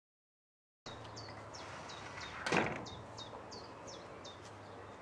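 Silence for just under a second, then outdoor garden ambience: a bird repeating a short chirp that falls in pitch, about three times a second. About two and a half seconds in there is one brief, louder sound that slides down in pitch.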